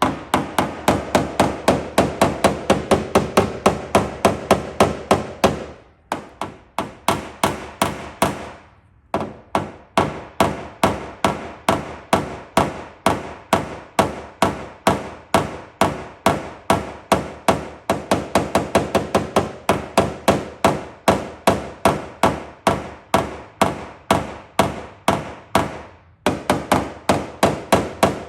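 Rapid light hammer taps on a tap-down tool, about four a second in long runs with a few short breaks: knocking down high spots in the vehicle's sheet-metal panel and blending them out after a glue pull.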